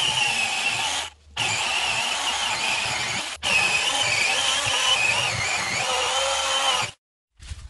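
OSUKA OCMC-6S1 20-volt cordless mini chainsaw running and cutting into branches, its high whine wavering in pitch under load. It breaks off for a moment about a second in, again for an instant midway, and stops shortly before the end.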